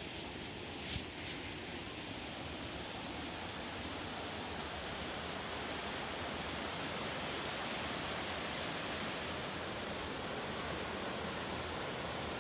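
Steady rush of a waterfall, a dense even hiss of falling water that builds slightly over the first few seconds, with a brief knock about a second in.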